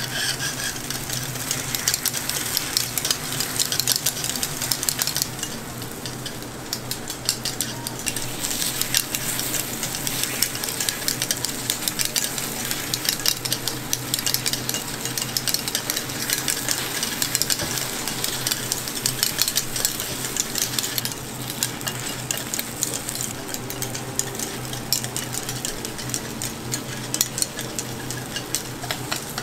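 Takoyaki batter sizzling in a takoyaki grill pan while metal picks rapidly click and scrape around the round moulds, turning the balls. A steady low hum runs underneath.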